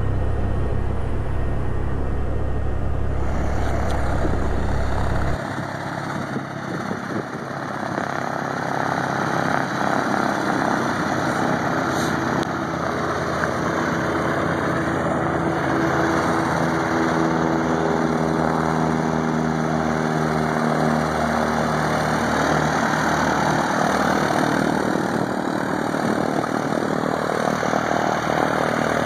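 Cessna 152's four-cylinder Lycoming O-235 engine and propeller: for about the first five seconds a steady low engine drone heard from inside the cabin, then, after a sudden change, the plane heard from outside taxiing at low power with a steady propeller hum.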